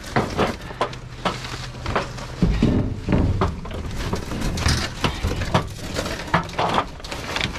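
Junk being shifted around in a dumpster by hand: irregular knocks, clunks and scrapes, with a heavier rumbling shove about two and a half seconds in.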